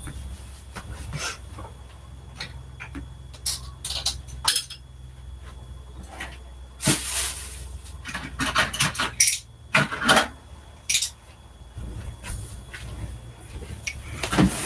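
Someone rummaging off-camera among small objects, searching for lipstick: scattered clicks, knocks and clinks, with louder rustling about seven seconds in and again around ten seconds. A steady low hum runs underneath.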